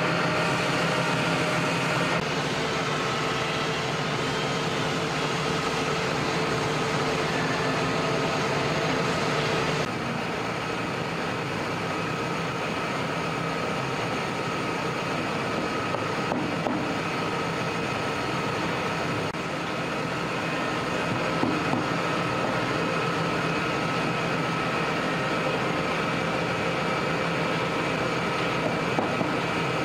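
Woodworking machinery running steadily, a continuous mechanical hum with several fixed tones; the sound changes abruptly about two and about ten seconds in.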